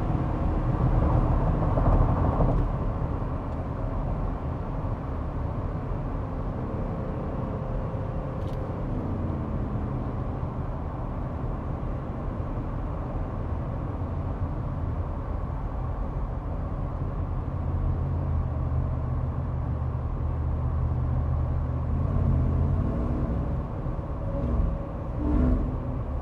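Cabin road noise in a Ford F-150 Shelby Super Snake Sport pickup while driving: a steady low rumble from the supercharged V8 and tyres, a little louder for the first couple of seconds.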